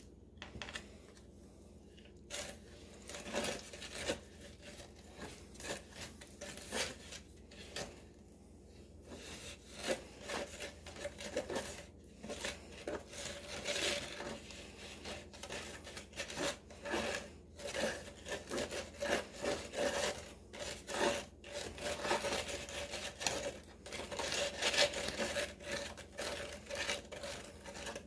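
A stirrer scraping and rubbing against the sides of a plastic cup as Cement All and water are mixed into a wet paste, in quick, uneven strokes that grow louder over the second half.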